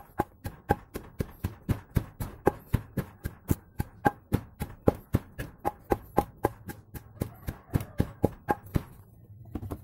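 Cassava being pounded in a mortar, a quick steady run of knocks at about four a second that stops shortly before the end.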